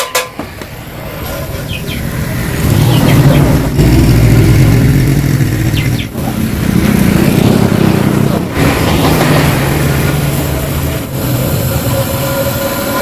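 Yamaha RX-King 135 cc two-stroke single running through its hollowed-out (bobok) exhaust, getting louder over the first few seconds and then staying loud with three brief drops.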